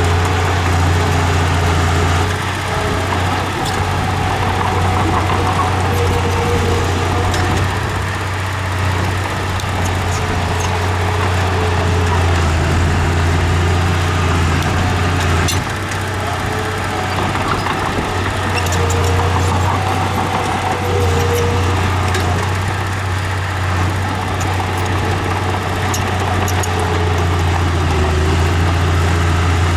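Diesel engine of a Komatsu D31E crawler bulldozer running steadily at work, a deep steady hum whose loudness eases off and picks up again several times, with a few light clanks.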